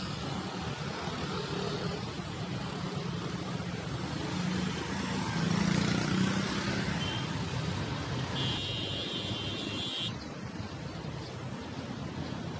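Steady city road traffic, swelling as a large coach bus drives close past near the middle. A high steady squeal sounds for about a second and a half after that.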